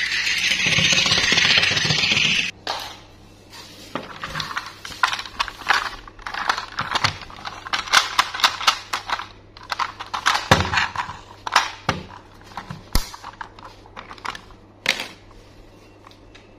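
A loud steady noise cuts off abruptly about two and a half seconds in. Then come many irregular plastic clicks and knocks as a hollow blue plastic battery-operated toy train is handled, turned over, and its battery cover pried off.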